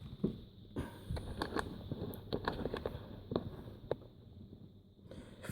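Irregular light clicks and knocks, with some rustling, from hands handling a laptop and its parts.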